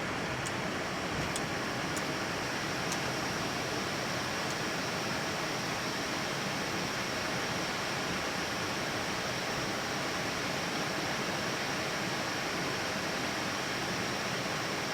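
Steady hiss of an Airbus A320-family airliner's flight deck, with air-conditioning and the idling engines, as the jet lines up for takeoff. A few faint ticks come in the first three seconds.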